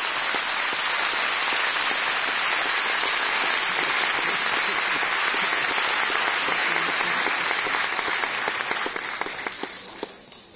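Audience applauding, a dense steady clapping that holds for about eight seconds and then dies away near the end.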